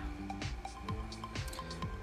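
Quiet background music with short held notes and a light, regular ticking beat.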